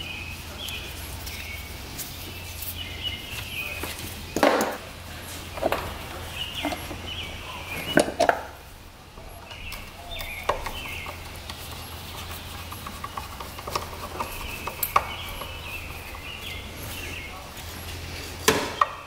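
Handling noises at an outboard lower unit gearcase: a few sharp knocks and clicks as the plastic oil-pump tube is pulled off and a screwdriver works at the fill hole, over a steady low hum. Birds chirp in the background.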